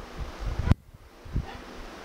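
Electric fan running at full speed, its air buffeting the microphone in a low, rough rush, with a single sharp click about a third of the way through.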